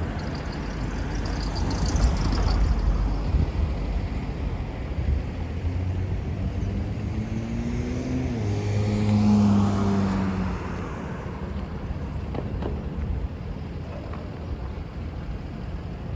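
Roadside traffic: a motor vehicle's engine accelerating past, its pitch climbing over several seconds and loudest about nine to ten seconds in, then fading back into the steady traffic noise.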